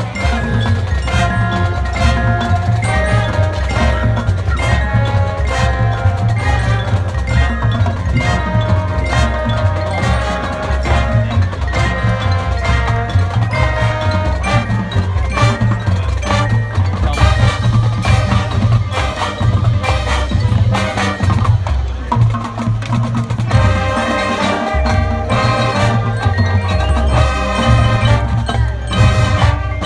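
High school marching band playing its field show: brass with a front ensemble of marimbas and vibraphones ringing over a steady low pulse.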